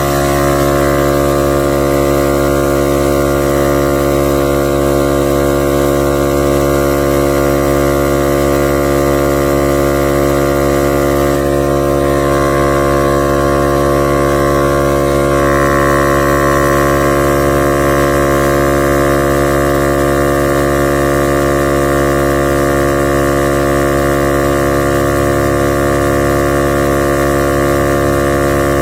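Portable 12 V tire inflator's compressor running steadily under load while it pumps up a car tire, a loud, even motor hum. Its tone shifts slightly about twelve seconds in.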